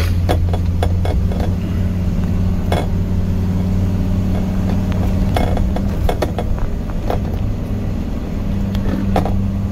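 Vehicle engine and road noise heard from inside the cab, a steady low drone while driving, with irregular clicks and clinks of something rattling.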